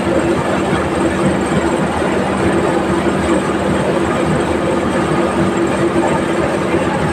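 Vehicle engine running at a steady speed under a dense rumble of travel noise, with an unchanging low hum.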